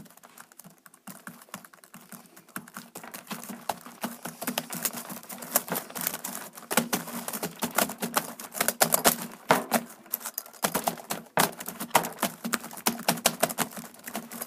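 Fast typing on a computer keyboard: scattered keystrokes for the first few seconds, then a dense, irregular clatter of key clicks.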